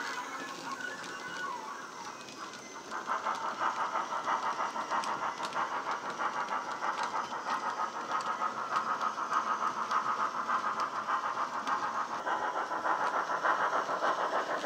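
Steam exhaust chuffs of a Crosti-boilered BR 9F 2-10-0, played by the model's DCC sound decoder through its small speaker, beating steadily as the locomotive works its freight train. The chuffs get louder about three seconds in.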